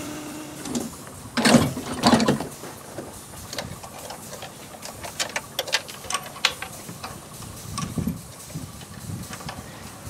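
Two loud noisy bursts about a second and a half and two seconds in, then scattered small metallic clicks and knocks as a hand works the coupler between two ridable-scale freight cars.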